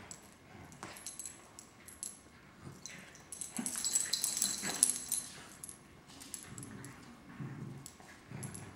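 Two dachshunds tugging at a plush toy between them, making low growls and whines. There is a louder, high-pitched stretch about three and a half to five seconds in, and small clicks and rattles throughout.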